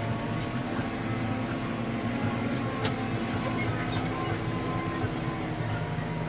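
Diesel engine of a JCB 3DX backhoe loader running steadily, with a few faint knocks.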